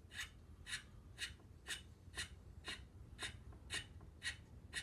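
M5 thread tap being turned by hand into a freshly drilled hole: a light, short scraping stroke about twice a second as the tap cuts the thread.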